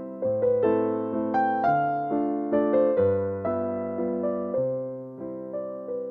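Background music: a gentle electric piano melody with struck notes that fade, over bass notes that change about every second.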